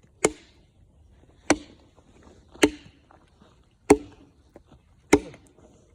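Wood being chopped: five sharp, evenly spaced blows, about one every second and a quarter.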